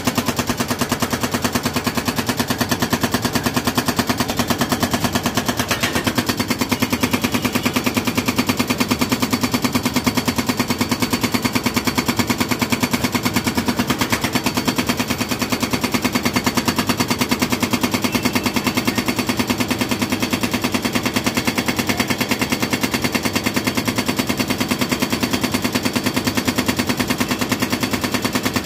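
Hydraulic breaker hammer on a Shinrai excavator's arm pounding hard concrete, a rapid, steady hammering that keeps on without a break.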